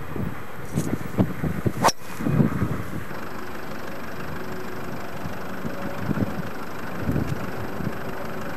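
A single sharp click of a golf club striking the ball about two seconds in. Around it, gusts of wind rumble low on the microphone.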